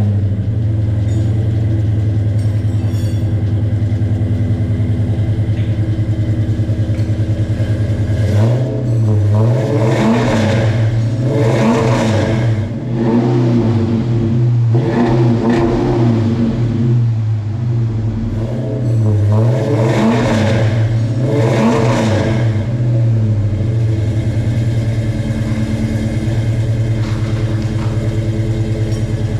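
A 2014 Dodge Challenger R/T's 5.7-litre Hemi V8, running through new long-tube headers and a mid-pipe. It idles steadily, is revved in three bursts of quick throttle blips, and then settles back to idle.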